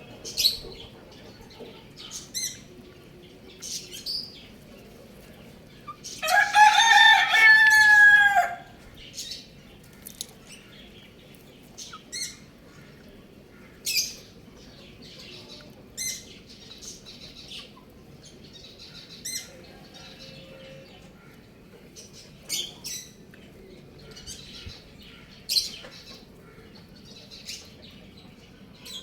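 Chicks peeping in short, high chirps every second or two, and a rooster crowing once, loudly, about six seconds in for a little over two seconds.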